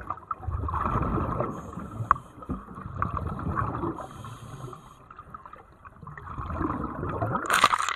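Water sloshing and gurgling in a hole cut in lake ice, close against a camera at the waterline, irregular and uneven, with a louder rush of water near the end.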